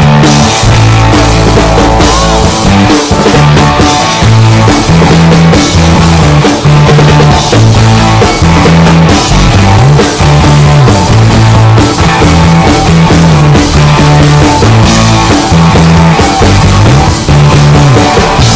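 Loud rock music: a bass line stepping between notes over a drum kit.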